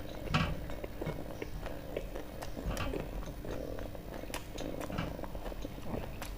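Close-miked eating sounds: a person chewing food, with many small wet clicks over a low steady rumble.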